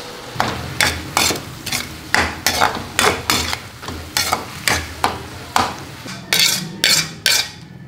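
Wild mushroom adobo cooking in a hot pan: a cooking utensil stirring and scraping the pan in quick repeated strokes, about two or three a second, over a steady sizzle.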